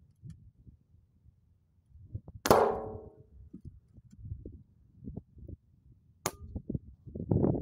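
An air rifle slug strikes a metal satellite dish about two and a half seconds in: a sharp ringing clang that fades out over most of a second. About six seconds in comes a second, sharper crack with barely any ring.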